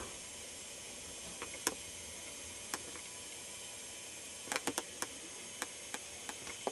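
Steady camcorder hiss with about a dozen sharp clicks at irregular intervals, four of them in quick succession about four and a half seconds in, typical of a camcorder being handled.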